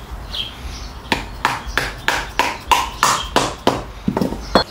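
A mallet striking repeatedly to drive an anti-roll (sway) bar bushing into its frame bracket: about a dozen sharp knocks at roughly three a second, starting about a second in.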